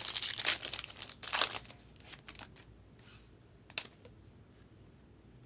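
Foil wrapper of a trading-card pack crinkling and tearing as it is opened, loudest in the first second and a half, then quieter rustling and a single sharp click as the cards are handled.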